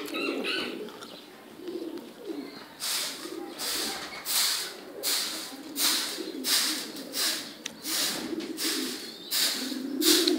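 A flock of Shahjahanpuri domestic pigeons cooing continuously in low, warbling tones. From about three seconds in, short rustling hisses repeat roughly once or twice a second, louder than the cooing.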